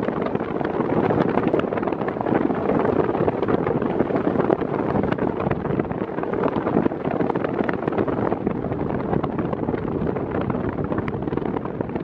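Philco Turbo PVT400 electric fan running at its highest speed: a steady, loud rush of air from the spinning blades, blowing onto the microphone.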